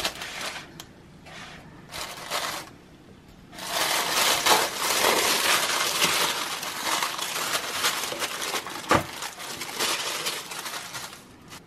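Tissue paper and shredded paper filler crinkling and rustling as hands unfold the wrapping and dig through a gift box: a couple of short rustles, then almost continuous crinkling, with a single sharp tap near the end.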